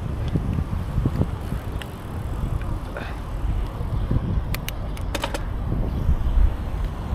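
Bicycle riding with wind rumbling on the microphone, and a quick run of sharp clicks a little past the middle.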